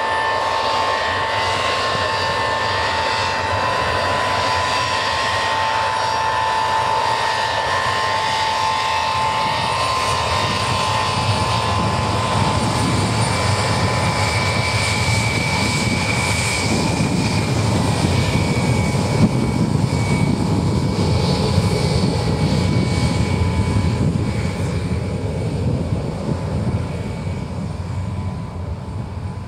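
Tupolev Tu-154M airliner taxiing, its three Soloviev D-30KU-154 turbofans at low power: a steady high whine over a broad jet hiss. It swells into a louder, deeper rumble about halfway through as the tail-mounted engines pass, then fades as the aircraft moves away.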